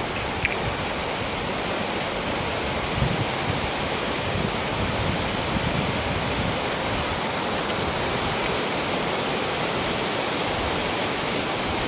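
Muddy river in flood rushing past in a steady wash of churning water, with some wind buffeting the microphone.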